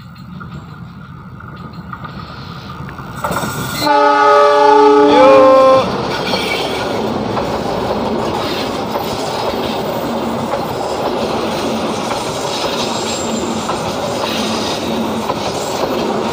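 Argo Wilis passenger train approaching and passing close by: the diesel locomotive's rumble builds, its horn sounds loudly for about two seconds, a chord of several tones that bends upward at the end, and then the coaches roll past with steady wheel noise and rail clatter.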